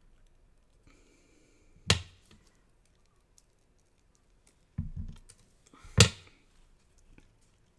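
Craft scissors and a small paper piece handled on a cutting mat: a sharp click about two seconds in, a dull knock near five seconds, and a louder sharp click about six seconds in as the scissors are handled and put down.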